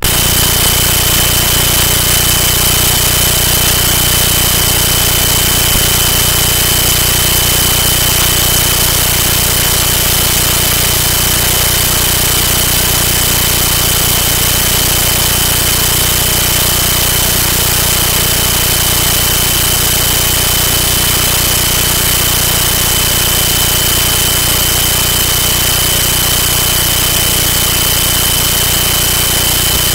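Loud, unbroken static hiss with a steady high whine and a low hum beneath. It cuts in suddenly at the start and covers any voice, the sign of a recording glitch in the audio.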